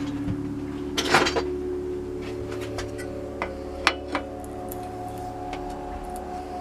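Metal parts and tools clinking and rattling, with a louder rattle about a second in and a couple of sharp clinks later, over steady ambient background music.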